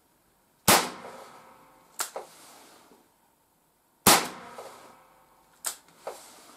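Two shots from an ALFA 461 4 mm Randz long flobert revolver, sharp cracks about three and a half seconds apart, each followed by a ring that fades over about a second. The chronograph clocks them at about 171 and 164 m/s. Between and after the shots come pairs of lighter mechanical clicks.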